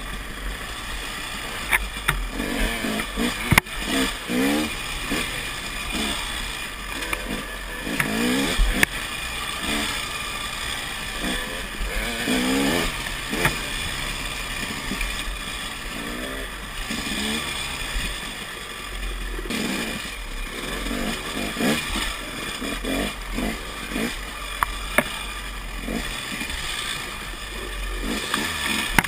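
KTM dirt bike engine revving up and falling back over and over as it is ridden along a rough trail, with scattered knocks and rattles from the bike over the bumps.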